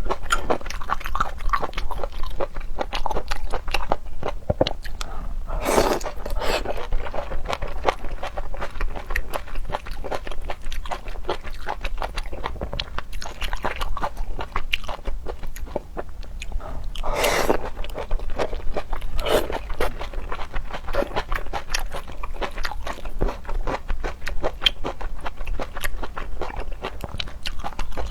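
Close-up eating sounds of shrimp and octopus: steady chewing with crunching and many small wet mouth clicks. Louder bites come about six seconds in and again about seventeen seconds in.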